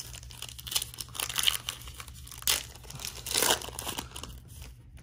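Foil trading-card pack being torn open and crinkled by hand: a run of irregular crackles and rips, loudest around the middle and again just past three seconds in.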